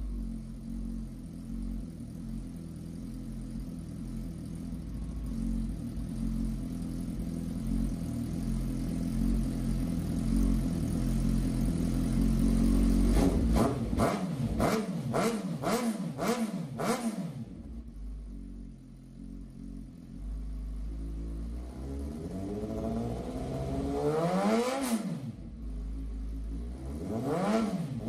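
Suzuki GSX-R1000 K8's inline-four engine, breathing through Cobra SP1 dual slip-on silencers with the catalytic converter removed and the dB killers out, idling steadily and then blipped on the throttle. About halfway there are four quick revs in a row, then idle again, a longer rev that climbs and falls back near the end, and one more quick rev at the very end.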